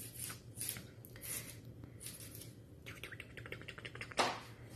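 Soft rustles and scratches as a kitten plays with a feather teaser toy on a tiled floor. A quick run of light ticks comes about three seconds in, and a louder brief rustle follows just after four seconds.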